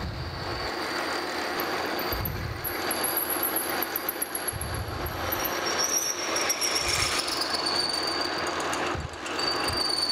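Metal lathe running while a 31/64-inch twist drill is fed from the tailstock into a spinning cast iron pulley blank. It is drilling the centre hole one size under half an inch, ready for a reamer. Steady machine and cutting noise, with a thin high squeal that comes in past the middle and drops slightly in pitch.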